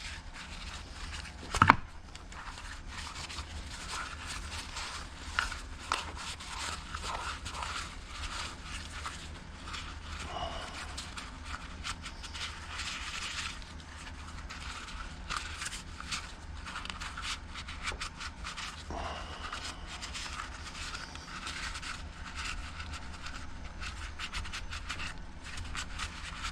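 Scraping and scratching against a small engine part as carbon is cleaned off it by hand, with many light clicks and one sharp knock about two seconds in.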